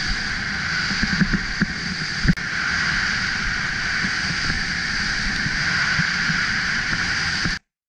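Steady rushing of wind and skis sliding over groomed snow, picked up by a helmet-mounted camera during a downhill run. A few knocks come between one and two seconds in, the loudest just after two seconds, and the sound cuts off suddenly near the end.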